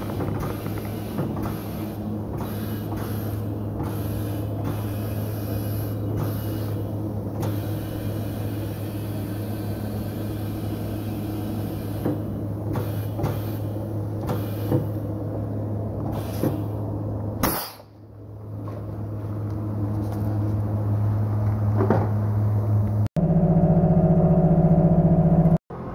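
Tyre-shop machinery humming steadily with scattered clicks and knocks; the hum drops away briefly past the midpoint and then builds again. Near the end a wheel balancer spins a van's tyre and steel wheel with a louder, steadier hum that cuts off suddenly.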